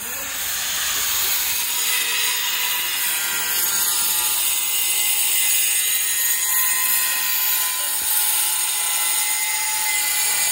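A handheld angle grinder starts up suddenly and runs at a steady high whine, cutting a ceramic floor tile.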